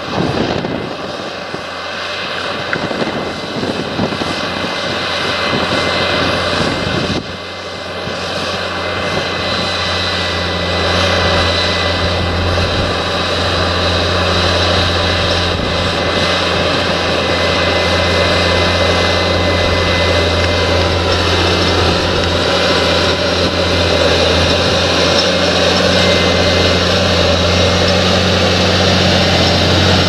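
Fendt 936 Vario tractor's six-cylinder diesel engine running under load as it pulls a nine-furrow Lemken plough through the soil. It makes a steady, loud drone that dips briefly about seven seconds in and grows slightly louder toward the end.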